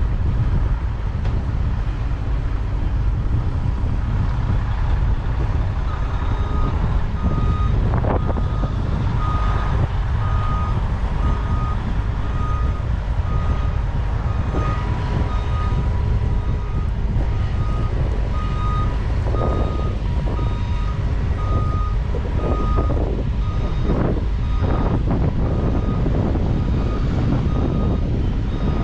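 A vehicle's backup alarm beeps in an even rhythm, about once a second, starting about six seconds in. It sounds over the steady low rumble of running harvest machinery.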